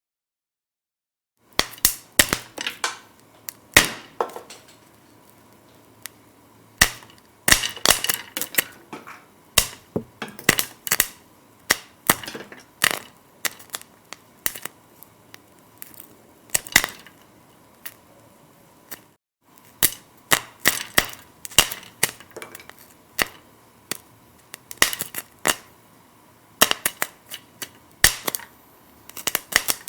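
Popcorn kernels popping: irregular sharp pops, sometimes several in quick succession, beginning about a second and a half in, with a brief lull about two-thirds of the way through.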